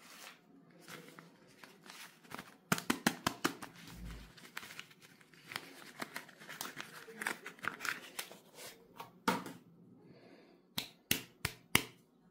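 A thin cardboard soap box being torn open by hand: crackling rips and paper rustling, with a few sharp snaps near the end as the bar comes out.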